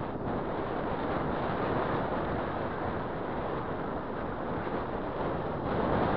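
Steady wind rush over the microphone of a camera moving along a road, mixed with road noise.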